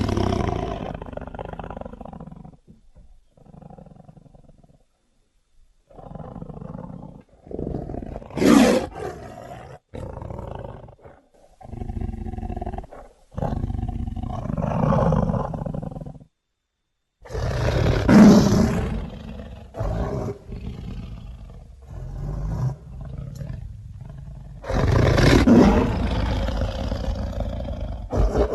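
Sabre-toothed cat (smilodon) film sound effects: a string of separate growls, snarls and roars with short silent gaps between them. The loudest roars come about a third of the way in, two thirds of the way in, and near the end.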